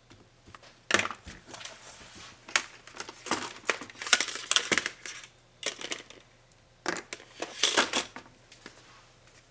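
Laptop parts being handled and pried apart by hand: irregular clicks, scrapes and crackles of plastic and metal, coming in bursts with the busiest stretches around four seconds in and again near eight seconds.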